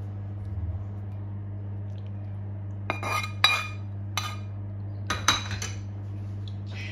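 Metal spoon clinking and scraping against a frying pan and a ceramic plate as sauce is spooned out over pasta: a few sharp clinks about three seconds in and another cluster about five seconds in, over a low steady hum.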